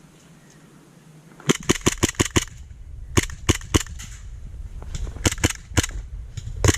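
Airsoft guns firing. About a second and a half in comes a fast string of about seven shots, then shorter volleys of two or three shots follow through the rest of the exchange.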